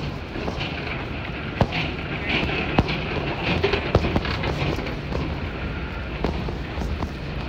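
Airport concourse ambience: a steady low hum and rumble with the rolling of suitcase wheels, broken by scattered sharp clicks.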